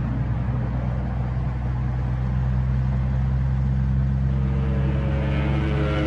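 Steady engine drone, with higher steady tones joining about four seconds in.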